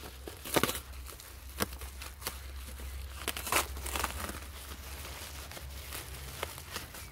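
Plastic bubble wrap crinkling and rustling as hands pull it off a taped package, with a few sharp crackles, the loudest about half a second in.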